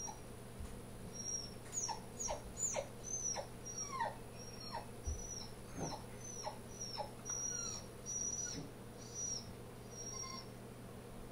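A dog whining: a run of short, high-pitched whines, about one every half second, most of them falling in pitch, from about a second in until near the end.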